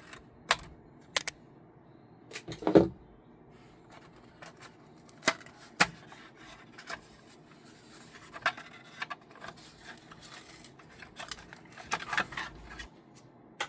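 Cutters snipping the zip ties that hold a 3D printer's extruder for shipping, heard as scattered sharp clicks, the loudest about three seconds in, among light handling noises.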